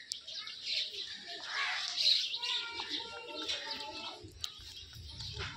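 Birds chirping in the trees, many short overlapping calls, with a low rumble near the end.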